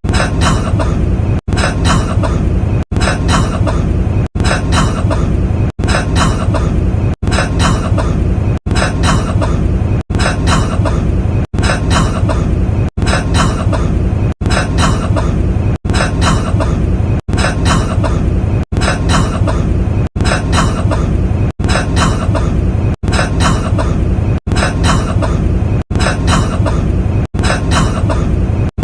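A man coughing, the same short cough clip looped over and over, about once every second and a half, with a brief hard cut between repeats.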